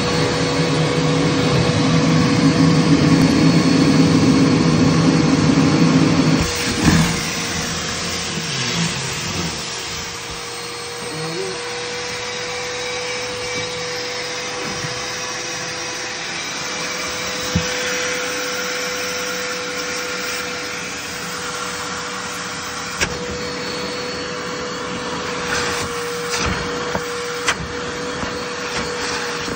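Vacuum cleaner running with a steady motor whine while its hose sucks up a soaking wet t-shirt. For about the first six seconds there is a louder low rumble; then comes a knock, and the rest runs quieter and steadier with a few sharp clicks.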